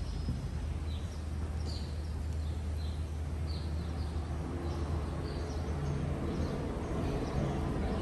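Birds chirping in short calls, about one a second, over a steady low outdoor rumble.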